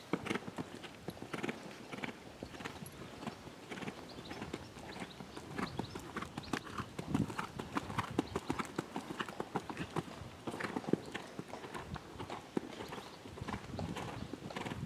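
Hoofbeats of a Holsteiner gelding cantering on sand arena footing: a continuous run of short, dull hoof strikes.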